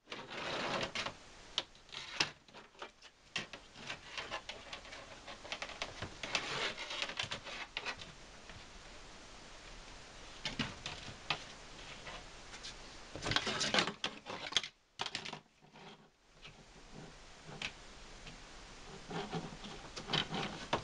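Plastic Hot Wheels track pieces being handled and fitted together on a tabletop: irregular clicking and clattering, in a few busier spells of plastic knocking.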